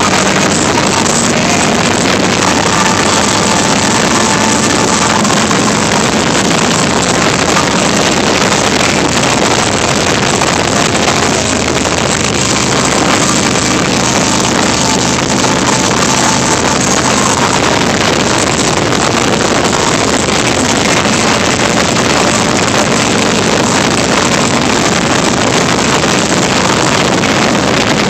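Harley-Davidson Heritage Softail V-twin running steadily at road speed, mostly buried under loud, continuous wind rush on the handheld phone's microphone.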